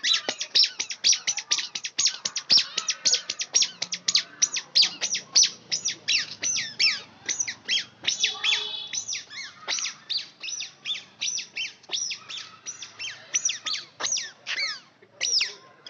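Small bird chirping: a fast, unbroken run of short, high chirps that sweep downward, about four a second.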